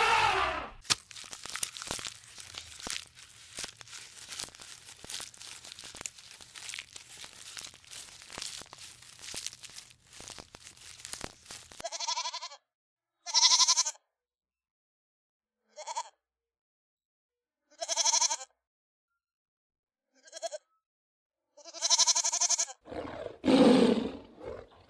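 A dense run of small clicks and crunches for about the first half. Then a goat bleats about six times, each call short with silence between, and a lower falling call comes near the end.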